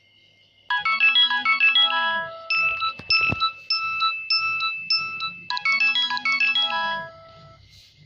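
Polyphonic Nokia 6030 MIDI ringtone played through a Nokia 2630's small phone speaker. It starts about a second in with quick runs of notes, moves to a stretch of repeated held notes in the middle, returns to the quick runs, and stops shortly before the end.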